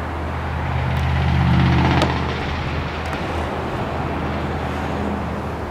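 A vehicle engine running with a low, steady hum. It grows louder over the first second and a half, then eases back and holds steady.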